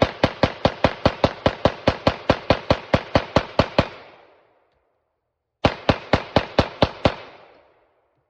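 Glock 19X 9mm pistol firing rapid semi-automatic shots with 115-grain ammunition, about four a second: a string of about seventeen shots, a pause of about a second and a half, then about six more.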